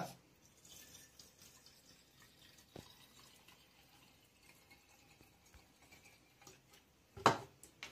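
Lemon-peel alcohol infusion being poured from a plastic bottle into the narrow neck of a soda can: a faint trickle with drips. There is a small click about three seconds in, and a short, sharp clack near the end that is louder than the pour.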